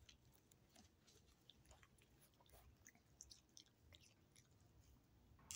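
Small dog eating off a plate, heard very faintly as scattered soft chewing clicks, with one slightly louder click near the end.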